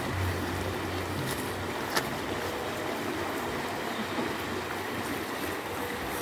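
Steady rushing noise of a river flowing, with a low hum that fades out about a second in and a single sharp click about two seconds in.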